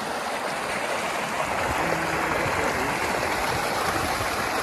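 Irrigation tubewell's outlet pipe pouring a thick, steady stream of water into a filled concrete tank: a continuous splashing rush.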